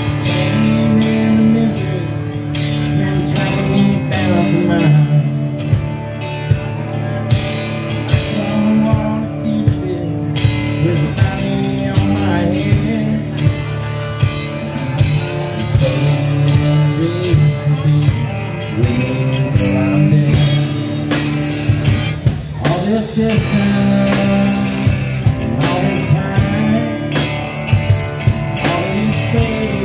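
A live band playing a song: strummed acoustic guitar, a Telecaster-style electric guitar, bass guitar and a drum kit. The drums keep a steady beat, with sharp hits that stand out more in the second half.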